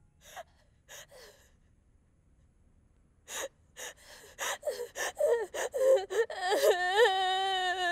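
Teenage girl crying: two sharp gasping breaths, then after a pause a run of quick gasping sobs that speed up and break into a long wailing cry near the end.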